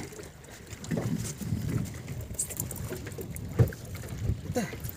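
Sea water slapping and sloshing against the hull of a small fishing boat, with a few low knocks, the strongest about three and a half seconds in.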